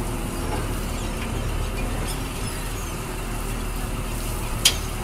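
Steady low drone of a fishing vessel's engine and deck machinery, with faint high squeaks partway through and one sharp knock near the end.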